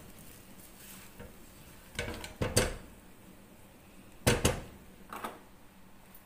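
Kitchenware clattering: a short cluster of knocks about two seconds in, a louder pair just past four seconds and a lighter knock about a second later.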